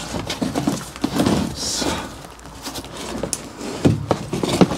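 Black plastic seed tray pushed onto a wooden shelf: irregular knocks and clatters, with plastic scraping on wood for about a second near the start.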